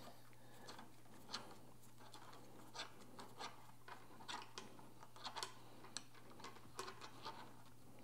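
Faint, irregular light clicks of a T-handle hex key turning and seating in a bolt on a bicycle handlebar stem, as the bolt is snugged up.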